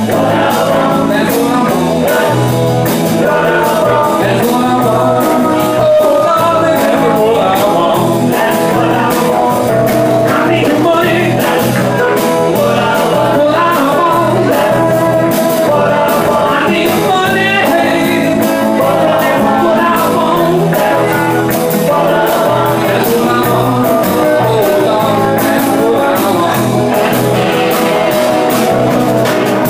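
Live rhythm-and-blues band playing loudly and steadily: electric guitars, saxophone, keyboard and drums.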